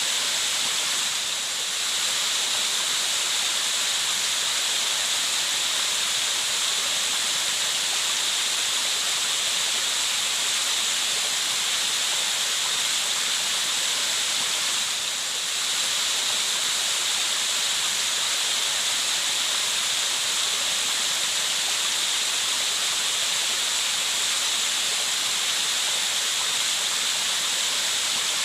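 Running water, a steady unbroken rushing hiss with its energy mostly high up, dipping slightly twice.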